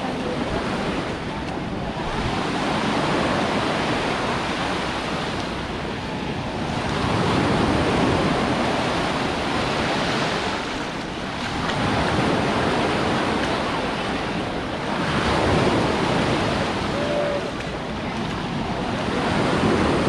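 Small sea waves breaking and washing up the shore at the water's edge, the surf swelling and falling back every few seconds.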